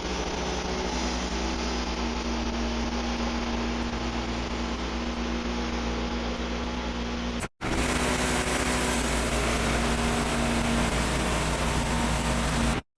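Wood-Mizer LX55 portable band sawmill running steadily, its engine humming under the hiss of the band blade sawing a white oak log into boards. The sound breaks off abruptly about seven and a half seconds in and comes back louder.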